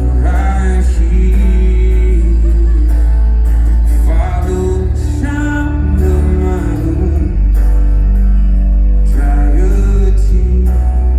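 Live rock band playing loudly with heavy, sustained bass and a wordless sung melody line.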